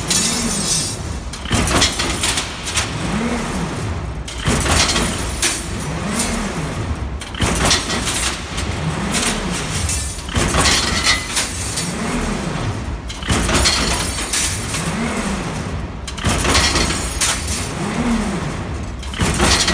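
Automatic wire-bending machine forming steel wire rings in a repeating cycle about every three seconds: a motor whine that rises and falls, then a sharp metallic clatter as a finished ring drops into the mesh basket.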